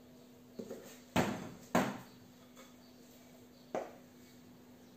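Four short knocks of a wooden spoon against a glass mixing bowl as dough is scraped out onto a board: a light knock, then two loud ones about half a second apart, and a lighter one near the end.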